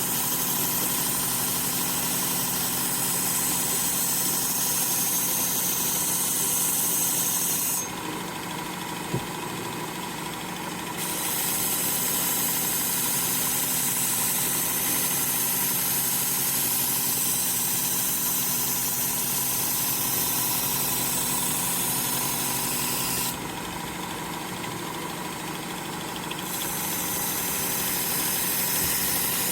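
Work Sharp belt sharpener running steadily with a coarse 80-grit belt, a knife blade being ground on it with a high grinding hiss over the motor hum. The hiss drops out twice, for about three seconds each time, while the motor keeps running.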